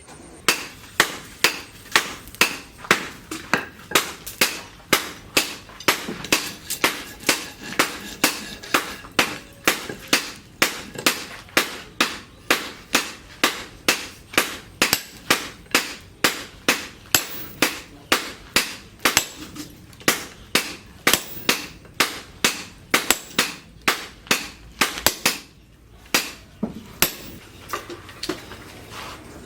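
Blacksmith's hammer striking metal on an anvil in a steady forging rhythm, about two blows a second, each with a short metallic ring. The blows pause briefly near the end, then a few slower ones follow.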